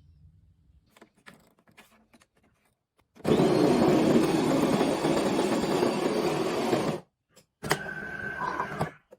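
Bean-to-cup coffee machine running. After a few faint clicks, a loud steady whir lasts about four seconds and cuts off suddenly. A shorter, quieter run with a thin whine follows near the end.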